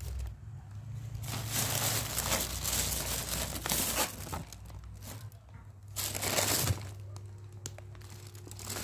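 Plastic shopping bag and the plastic snack packets inside it crinkling as they are handled and rummaged through: a long stretch of rustling, then a shorter one about six seconds in, over a low steady hum.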